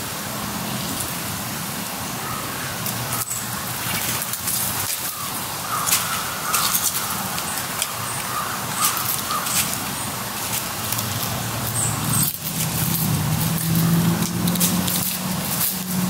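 Woodland birds calling in short notes, with scattered sharp clicks. A low steady vehicle hum comes in about three quarters of the way through.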